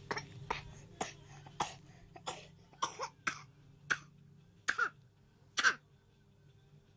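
A small child coughing: about ten short coughs in a row, roughly half a second apart, the last two the loudest. The coughing stops about two-thirds of the way through.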